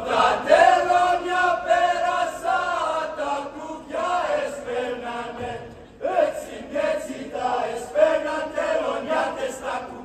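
A group of voices singing a Greek folk song in unison, in long held, wavering notes, with short breaks between phrases about four and six seconds in.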